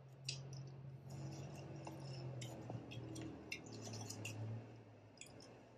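Faint, scattered clinks and small clicks of eating utensils against a bowl, with quiet eating sounds, over a low steady hum.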